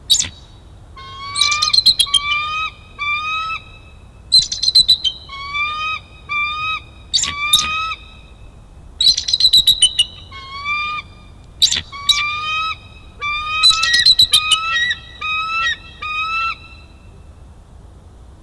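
Bald eagle calling: about six bouts of high chittering, each followed by a series of thin, rising whistled notes, with short pauses between the bouts.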